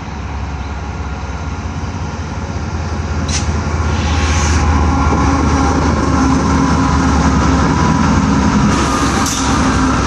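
Freight train passing close by: a steady low rumble that grows louder over the first four seconds, then holds.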